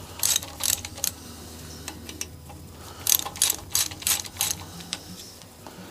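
A 13 mm ratchet wrench clicking in two spells of quick back-and-forth strokes, undoing the rocker arm mounting nuts on an air-cooled VW engine.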